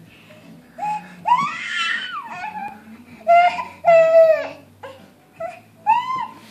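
A baby fussing in about five short, high-pitched cries, the loudest near the middle.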